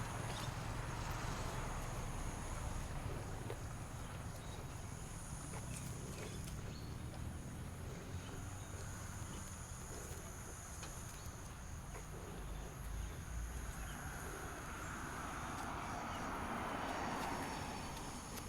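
Footsteps of someone walking along a roadside under a steady high-pitched insect drone, with a vehicle passing by that swells up about three-quarters of the way in and fades near the end.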